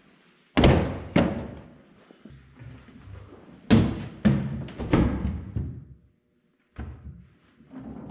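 Several heavy thumps and knocks with a ringing tail on the yellow Yanmar B37 mini excavator's steel body, as the new seat is set in place and a person climbs up into it. The loudest thumps come about half a second and three and a half seconds in.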